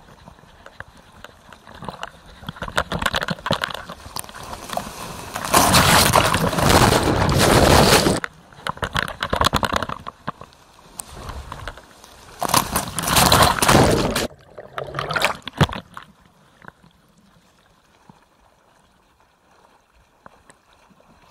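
Seawater sloshing and rushing over a surfboard-mounted action camera. Two loud surges of rushing water come about six and about twelve seconds in, each lasting around two seconds, with smaller splashes after them and quieter lapping near the end.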